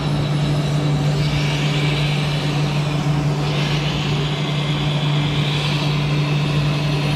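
Radio-controlled model truck running: a steady low hum, with a higher hissing whine that comes in about a second in, shifts partway through and fades near the end.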